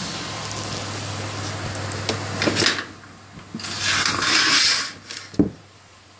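12-volt hydraulic pump running a homemade press's cylinder, a steady low hum with some rattle, as the ram forms an aluminum sheet. A burst of hiss comes about four seconds in, then a sharp click about five seconds in, after which the hum stops.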